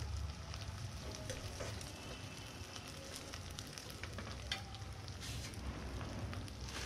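Chicken frying and sizzling in a metal wok over a firewood fire, with a metal ladle stirring it at first. Scattered sharp clicks run through the steady sizzle.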